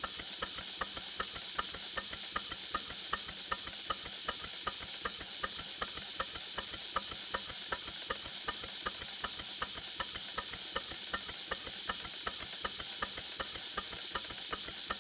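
Model steam engine running on compressed air under Watt centrifugal governor control, with a steady hiss of air and an even clicking of about three beats a second as it holds a steady speed.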